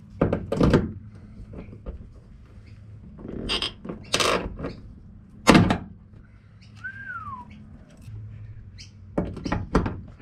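Hand pop-rivet tool setting rivets: a run of clacks and squeezes, the loudest a sharp snap about halfway through, and a quick cluster of clicks near the end.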